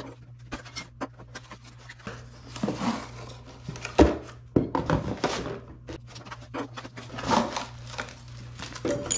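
Cardboard boxes and packaging being handled while crossbow parts are unpacked: scattered rustles and clicks, with one sharp knock about four seconds in. A low steady hum runs underneath.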